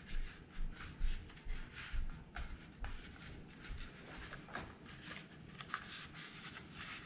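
Hand scrubbing powder residue off a dismantled Browning BAR Mark 3 rifle part, in short scratchy rubbing strokes about two a second. The strokes are heavier over the first couple of seconds, then lighter and more scattered.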